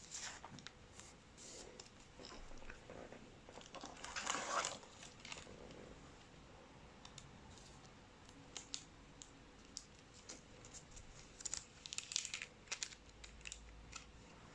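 Faint rustling, crinkling and light clicks of trading cards and plastic being handled, with a louder rustle about four seconds in and another run of rustles near the end.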